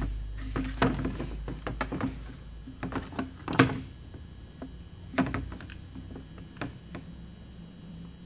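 Knocks and clicks of a Husqvarna 372 chainsaw being handled while its fuel line is worked through the crankcase: a string of light irregular knocks, the loudest about three and a half seconds in, over a low steady hum.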